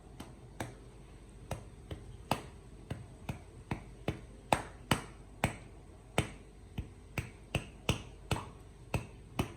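A run of sharp taps, about two a second, as a bottle of thick oyster sauce is tapped to coax the sauce out onto a measuring spoon.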